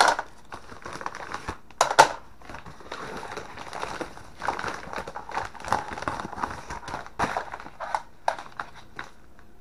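Padded paper mailer envelopes crinkling and crackling as they are torn open and handled, with sharp crackles, the loudest about two seconds in.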